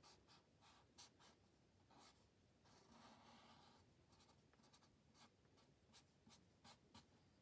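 Faint scratching of a felt-tip marker drawing on paper, a string of short strokes.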